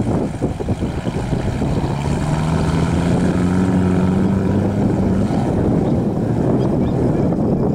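Old soft-top jeep driving through shallow flooded marsh: its engine running under load amid the rush and splash of water thrown up around the wheels. The engine note stands out more clearly for about three seconds in the middle.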